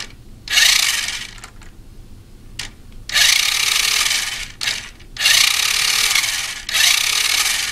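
Toy RC truck's electric drive motor and plastic gearbox whirring as its wheels spin freely in the air, switched on in four short bursts of about a second each, with brief clicks in the gaps.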